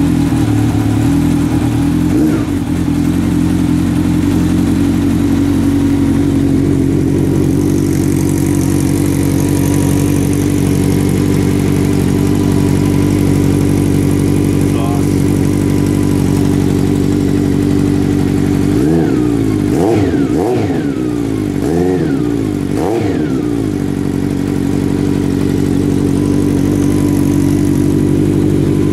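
1991 Honda Nighthawk 750's air-cooled inline-four idling steadily through a Vance & Hines 4-into-1 exhaust, on a little choke because it is still cold. About two-thirds of the way in it gets a quick run of four or five throttle blips, each rising and falling back to idle.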